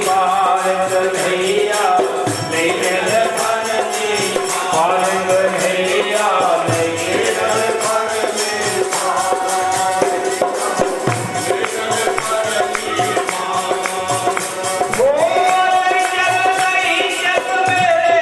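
Himachali bhajan kirtan: devotional singing over a steady percussion beat, with a new long-held sung note starting near the end.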